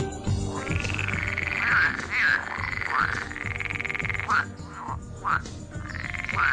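European water frogs (Pelophylax) croaking: a run of repeated croaks starting about half a second in, some overlapping, with short gaps between them.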